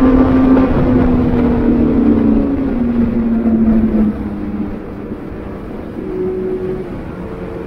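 Vehicle engine under way, its note falling steadily for about four seconds as it slows, then quieter, with the pitch rising again near the end as it picks up speed.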